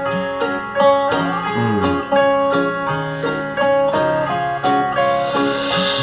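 Guitar-led music playing: the instrumental part of an island-style country love song, with plucked guitar notes and some sliding pitches.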